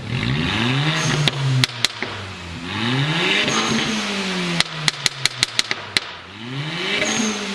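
Volkswagen engine revved three times, each rev climbing and falling back. As the revs drop there are rapid sharp pops and crackles from the exhaust, the overrun popping programmed in by the tune.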